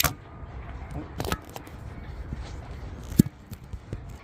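Scattered clicks and knocks of hand tools and metal hardware being handled while corroded boat anodes are unscrewed, with the loudest a single sharp knock about three seconds in.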